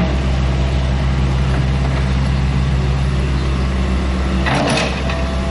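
Mini excavator's diesel engine running steadily as it digs, with a brief rush of noise near the end.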